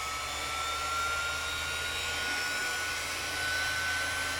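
Electric random orbital sander running on its lowest speed setting: a steady motor whine that climbs slowly in pitch over a constant whirring hum.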